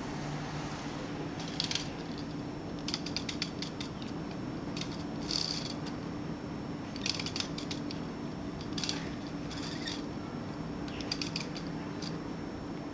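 Small diecast toy pile driver's lever-and-winch mechanism being worked by hand: short runs of rapid, ratchet-like clicks, about seven of them with pauses between.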